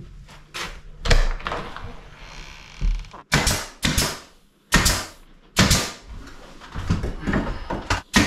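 An irregular series of sharp knocks and thuds, well over a dozen, each ringing briefly in a small room, as trim is fixed around a door opening.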